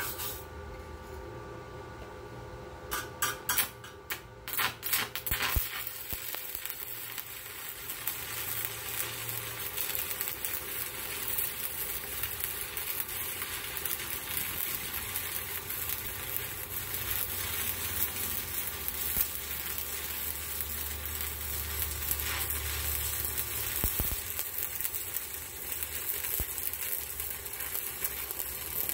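Stick-welding arc running a bead on a steel tube bracket: a steady crackle, preceded by a few sputtering strikes about three seconds in, that cuts off just before the end.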